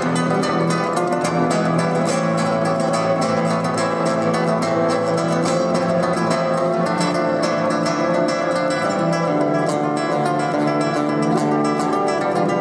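Nylon-string classical guitar played fast through a small amplifier: a stream of quick plucked notes over a held low bass note that changes about three quarters of the way through.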